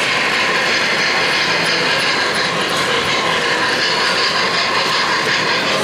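O-gauge model train running on the layout track, a steady rolling noise as the locomotive and freight cars pass.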